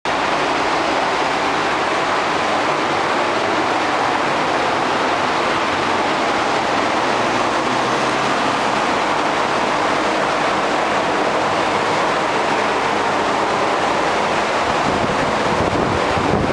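Steady, loud rushing noise with a faint low hum underneath, unchanging throughout.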